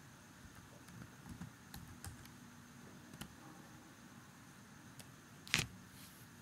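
Faint, scattered keystrokes on a computer keyboard as a number is typed in, with one louder click about five and a half seconds in.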